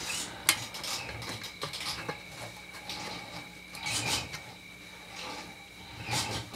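Small metal clicks and rubbing as a carburetor is shifted on its gasket on the fuel tank and its mounting screws are lined up by hand, with a few sharp clicks about half a second in, around four seconds and just after six seconds.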